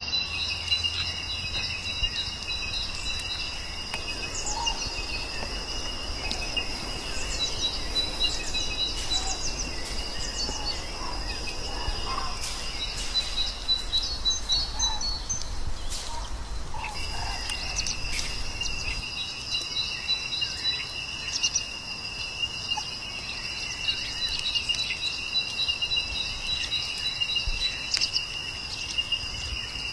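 Insects trilling in a steady chorus, high-pitched and continuous, with short bird chirps scattered over it. The chorus breaks off for about a second midway, then resumes.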